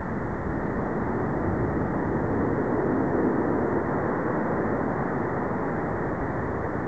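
Steady, distant roar of an Airbus A319's jet engines as the airliner rolls out on the runway after landing, swelling a little about three seconds in, with wind rumbling on the microphone underneath.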